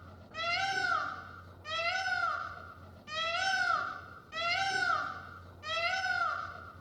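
A cat meowing over and over: five even, high calls that each rise and then fall in pitch, one about every second and a half.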